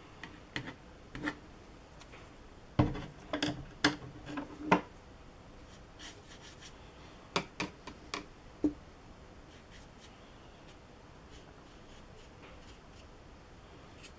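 A plastic scraping card drawn and tapped against watercolour paper in short scraping strokes and clicks, a cluster of them about three to five seconds in and a few more just before the middle; the rest is faint room noise.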